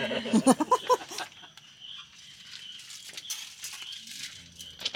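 Plates, bowls and utensils clinking and rattling as food is served at a camp dinner table, a scatter of short knocks and clinks, after a brief burst of voices at the start.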